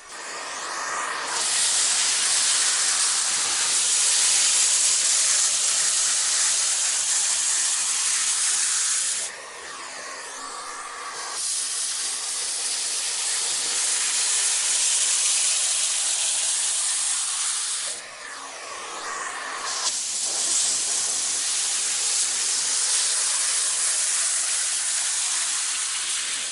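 Vacuum cleaner airflow hissing in long surges, dipping briefly about 9 and 18 seconds in, with a faint wavering swish in each dip.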